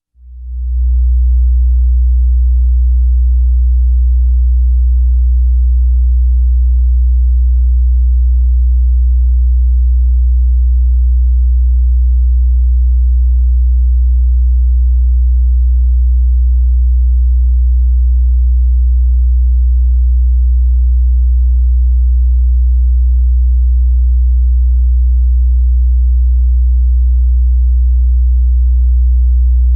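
Steady 60 Hz sine test tone, a pure low bass hum that comes up within about a second and then holds at one level. It is the phasing-test signal: the bass should sound the same with the balance centred or turned left if the speakers are wired in phase.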